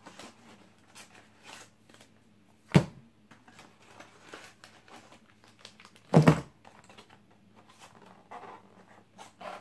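Packaging being handled: faint rustling of paper and plastic, broken by two sharp knocks on a tabletop, one about three seconds in and a louder one about six seconds in, as the items are set down.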